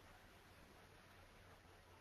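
Near silence: faint steady hiss with a low hum, the room tone of a recording line.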